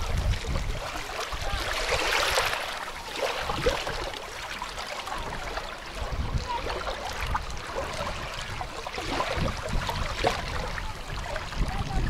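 Small waves lapping and washing over the shallow sandy edge of a quarry lake, swelling about two seconds in, with wind rumbling on the microphone underneath.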